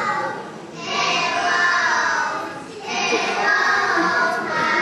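A group of young girls singing together on stage in phrases of about two seconds, with short breaks between them.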